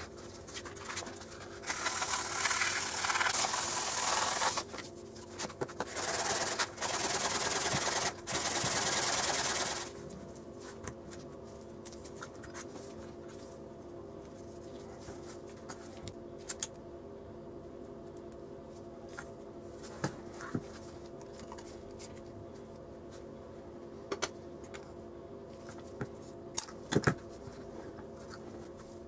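Rough abrasive rubbing by hand on a small part, a scraping sound in four long strokes over the first ten seconds. After that come only scattered small clicks and taps of small metal and plastic parts being handled on a table.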